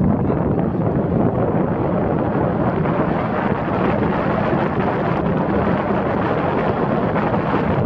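Steady wind rushing over a microphone on the roof of a moving car, mixed with the car's road and tyre noise.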